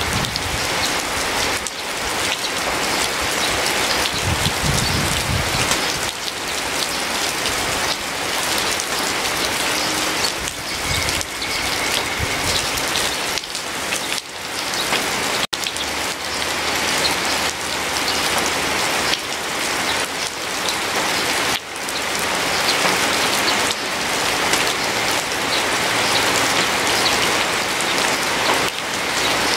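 Steady rain falling, a dense patter of raindrops. It cuts out for an instant about halfway through.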